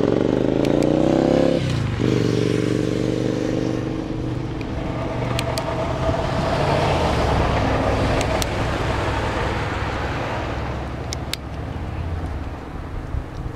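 A passing motor vehicle accelerating: its engine climbs in pitch, drops with a gear change about one and a half seconds in, then runs steadily with road noise that slowly fades. A few pairs of light, sharp clicks from hand pruners cutting branches come through on top.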